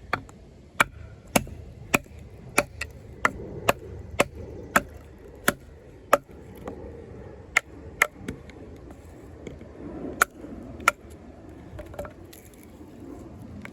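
A wooden baton knocking on the spine of a large D2-steel bowie knife, driving the blade down through a log to split it into quarters. Sharp knocks come about every half second for the first five seconds, then more spaced strikes follow.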